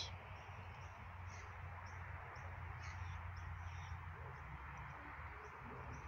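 Faint outdoor ambience: short, high bird chirps repeating every half-second or so over a steady hiss and a low hum.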